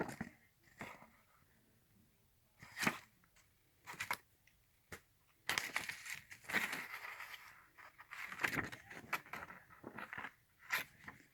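Packaging and sample packets being handled: scattered rustles, crinkles and light taps with quiet gaps between.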